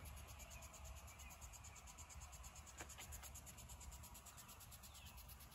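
Near silence: faint outdoor background, with one faint tick about three seconds in.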